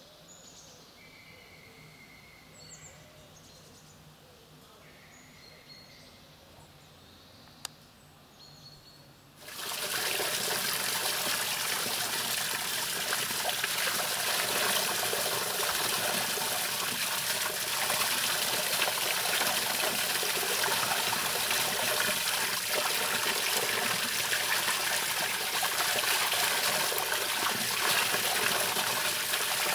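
Quiet woodland air with a few faint chirps. About a third of the way in it gives way suddenly to spring water pouring steadily from a pipe spout and splashing onto a grate below.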